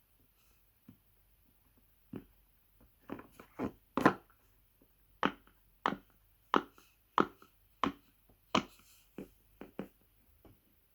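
Rainbow silicone pop-it fidget toy being pressed close to a microphone: a run of sharp clicky pops, a few uneven ones at first, then a steady string of about nine at roughly one and a half a second.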